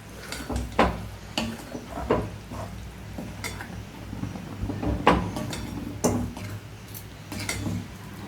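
Metal spoon clinking and scraping against a kadai while a curry-leaf kuzhambu is stirred, with a string of sharp, irregular knocks, the loudest about five seconds in.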